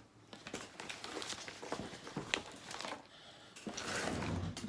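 Handling noises: scattered small clicks and rustles as objects are picked up and moved, with a longer rustle near the end.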